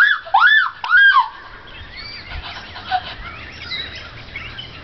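A person shrieking in fright: three high-pitched cries in quick succession, each rising then falling, over the first second or so, then quieter.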